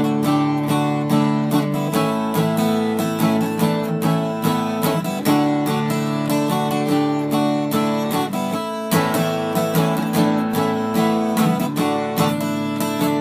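Background music: a generic tune with strummed guitar and a steady beat.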